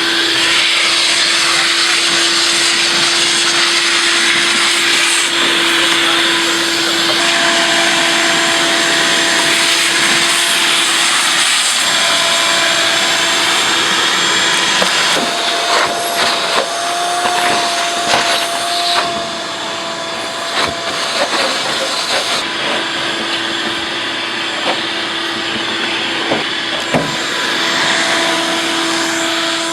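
An electric air-moving motor, vacuum-type, running steadily with a rush of air and a constant whine. A few knocks and clatters come about halfway through.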